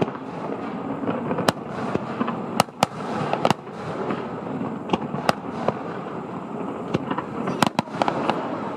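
Fireworks display going off: sharp bangs of bursting shells at irregular intervals, every second or so, over a continuous background of noise.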